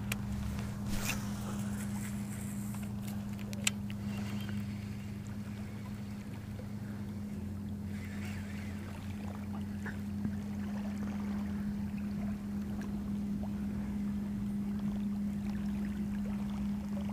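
A small boat's motor running steadily with a low, even hum, with a couple of light clicks early on.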